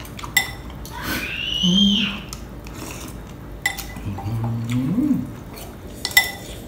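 Metal spoon clinking against a ceramic soup bowl three times, each strike with a short ring, while noodle soup is eaten. Between the clinks are eating sounds: a loud slurp about a second in and a low hummed 'mm' that rises at its end, past the middle.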